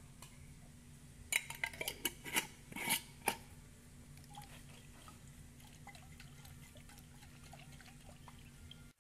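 A quick series of sharp clinks and knocks of a utensil and glass against a small glass jar of tomato purée, followed by fainter small ticks.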